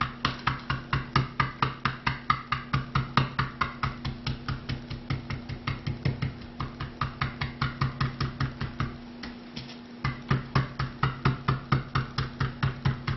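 Chicken breast being pounded flat under plastic cling wrap on a wooden cutting board with the back of a handheld lemon squeezer: light, even thuds, about three a second, with a short break about three-quarters of the way through. The pounding thins the meat and works the marinade in. A steady low hum runs underneath.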